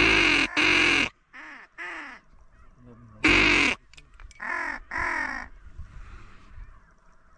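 Duck quacks, loud and close, in short runs: two loud quacks, then two softer ones, a single loud quack about three seconds in and two more around five seconds.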